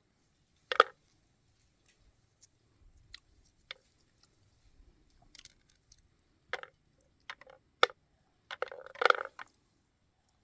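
Scattered sharp clicks and knocks, as of things being handled, with quiet gaps between them: a loud one about a second in and a quick cluster near the end.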